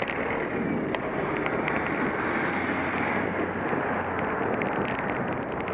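Wind rushing over the microphone of a camera on a moving bicycle, with steady road noise from riding and a few small clicks.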